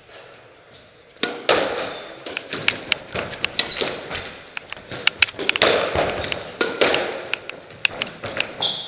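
Squash rally: the ball cracking off rackets and the court walls in a quick, irregular run of sharp impacts, starting about a second in, with a few short high squeaks of shoes on the wooden floor.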